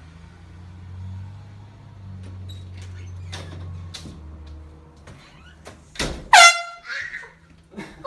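A handheld canned air horn gives one short, very loud blast about six seconds in, followed by a startled cry. Before the blast there is a low rumble with a few light clicks.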